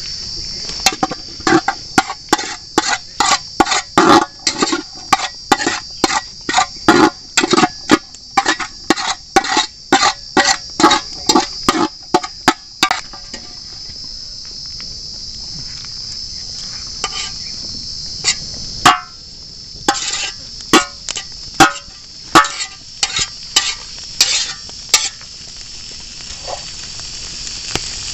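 Rapid, even knocking on an aluminium pot, about two or three strikes a second, as boiled snail meat is mixed with spices; later a few scattered knocks as it is tipped into the frying pan. Crickets chirr steadily underneath.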